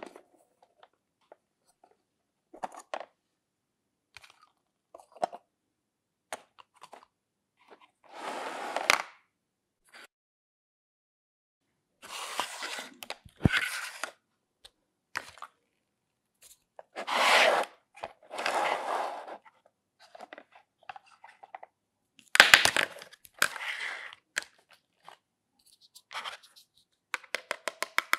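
Hard plastic toy kitchen pieces being handled: scattered clicks and knocks as toy pot lids and parts are lifted and set down, with several longer stretches of plastic scraping and rubbing on plastic. Near the end comes a quick run of ticks as a plastic toy knife is drawn across a plastic cutting board.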